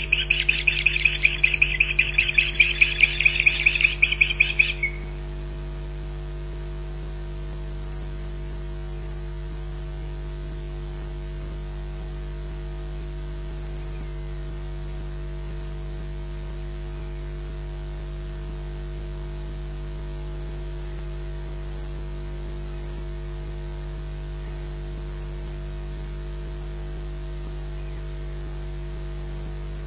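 Osprey giving a rapid run of high, piping alarm chirps, about four a second, which cuts off abruptly about five seconds in. After that there is only a steady electrical hum and hiss.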